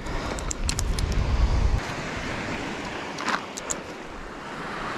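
Gusty coastal wind buffeting the microphone, heaviest for the first couple of seconds, over a steady wash of wind and surf. Scattered sharp clicks and rustles of tent gear being handled come in twice.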